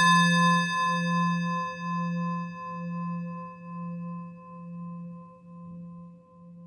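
A struck singing bowl ringing and slowly dying away, its low hum wavering in a slow pulse while the higher overtones fade first.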